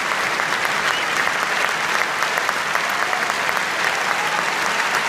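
Opera audience applauding at a curtain call: dense, steady clapping from many hands.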